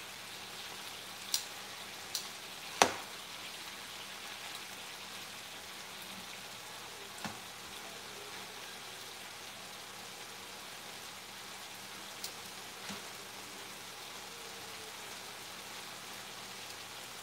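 Cubes of beef searing in a hot frying pan: a steady sizzle. Metal tongs click against the pan a few times as pieces are turned, the loudest click about three seconds in.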